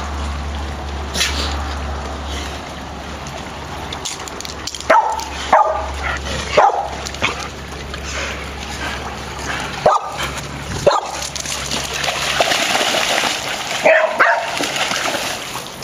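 Dogs barking and yipping in rough play, short barks in clusters about five seconds in, around ten seconds and again near the end, with paws splashing through shallow water.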